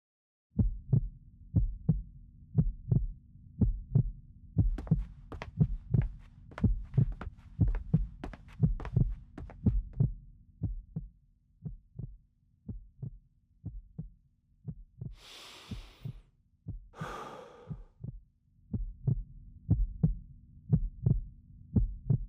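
Heartbeat sound effect: a steady double thump about once a second over a faint low hum, with two short whooshing rushes of noise about two thirds of the way through.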